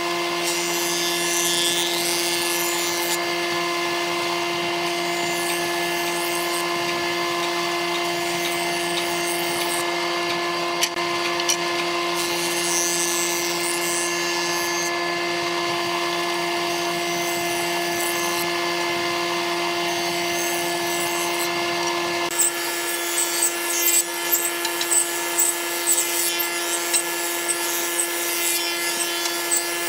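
An old combination jointer-planer running with a steady whine, its cutterhead planing boards as they are fed across it. About two-thirds of the way in, the sound shifts and a run of short, louder bursts follows, as wood goes through the cutters.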